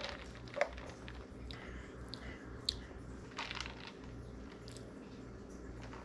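Faint sipping and swallowing of iced coffee through a plastic straw, with a few small clicks and a brief soft slurp, over a low steady hum.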